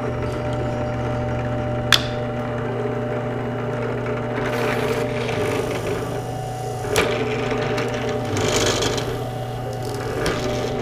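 Benchtop drill press running with a steady motor hum while a Forstner bit drills holes through PVC pipe, with short rasping cuts about four and a half and eight and a half seconds in. Two sharp clicks come about two seconds and seven seconds in.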